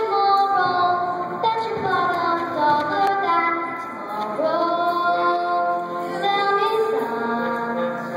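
A girl singing a solo musical-theatre song, holding long notes that step from pitch to pitch.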